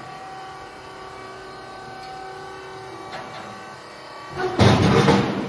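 Electric stand-up forklift running with a steady motor whine. A loud clatter comes about four and a half seconds in.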